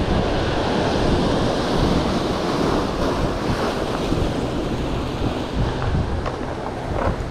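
Surf breaking and washing over jetty rocks, with wind buffeting the microphone.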